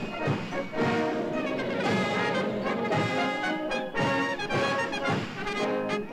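Military brass band playing a march, trumpets to the fore, with chords moving over a regular beat.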